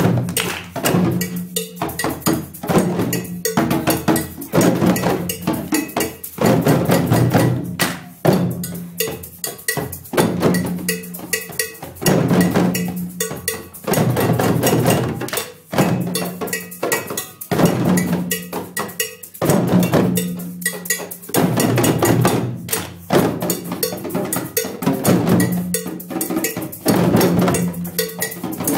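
A class ensemble of djembes played together in a steady, repeating rhythm, deep low notes mixed with sharp, higher strokes.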